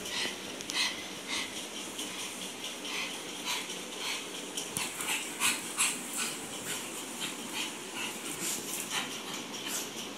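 A pug puppy running around on a hard tiled floor: a rapid, irregular string of short sharp sounds, several a second.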